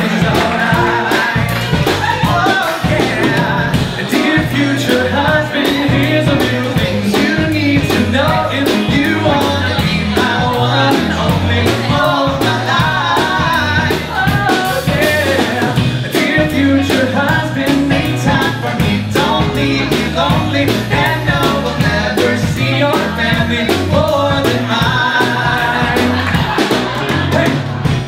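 Live band of piano, bass, drums and electric guitar playing an upbeat pop song with a steady drum beat, with male voices singing over it.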